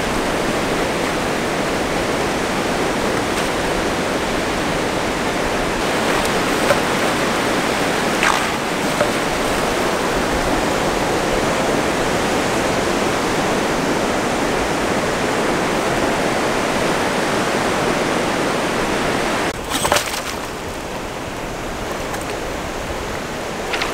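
Ocean surf washing in over the sand: a steady rush of breaking waves and foamy swash, easing slightly about twenty seconds in.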